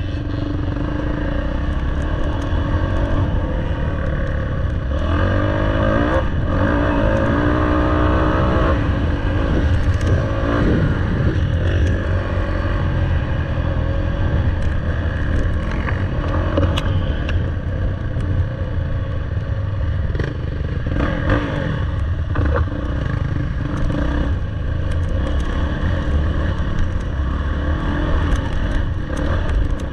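Dirt bike engine running under load, revving up and down several times, with scattered knocks and clatter.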